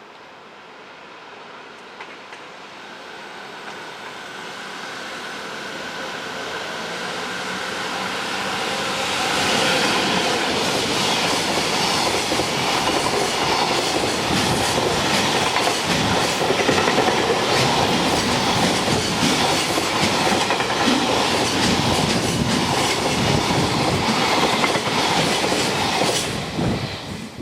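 A train approaching and passing at speed: the sound builds over several seconds with a few steady tones, then a long loud run of wheels clattering over rail joints, which cuts off sharply near the end.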